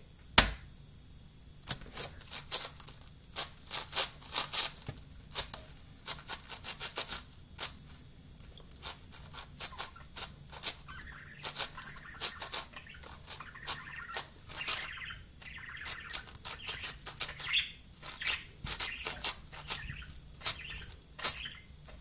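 A 7x7 Rubik's cube being turned rapidly in the hands: dense, irregular runs of quick plastic clicks and clacks as its layers are turned, after a single sharp knock about half a second in.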